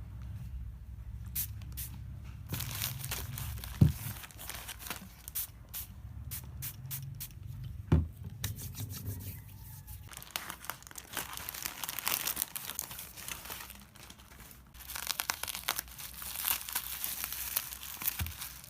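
Crinkling, rustling handling noise with many small clicks, broken by two sharper knocks about four and eight seconds in.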